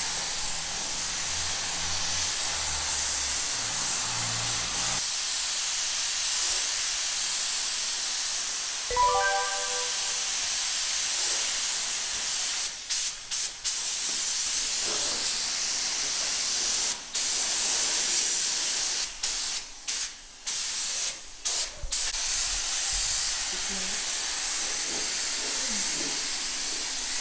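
Compressed-air paint spray gun hissing steadily as it sprays primer-sealer onto a car body, the hiss cutting off briefly several times in the second half as the trigger is let go between passes.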